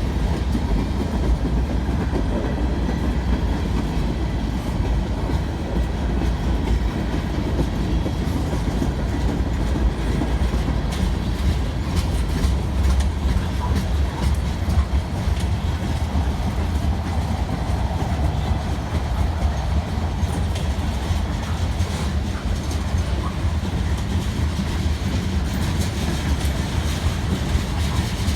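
CN freight train cars rolling past: a steady low rumble of steel wheels on rail, with scattered clicks and clatter as the wheels cross rail joints.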